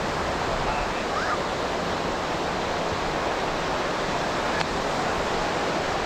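Steady wash of ocean surf breaking on the beach, with faint distant voices and a single short click about two-thirds of the way through.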